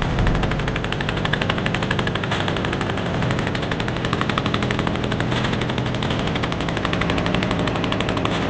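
Small boat engine running steadily, a rapid, even beat of knocks over a low drone.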